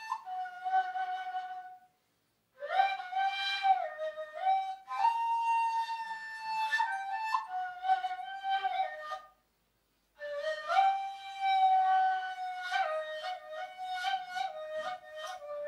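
Ney, the end-blown reed flute of the Mevlevi Sema, playing solo in three slow phrases with short breaks between them, holding notes and sliding in pitch between them.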